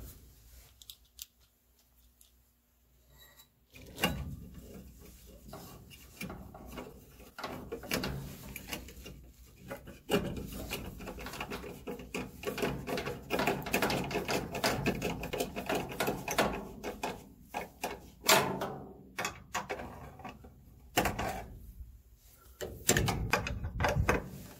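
Hand screwdriver turning screws into the sheet-metal mount of a new furnace draft inducer motor: uneven quick clicking and metal-on-metal scraping that starts about four seconds in, with short pauses between screws.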